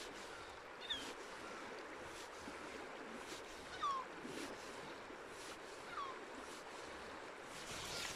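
Steady rush of a braided river's flowing water, with a bird giving three short, downward-sliding calls, about one, four and six seconds in.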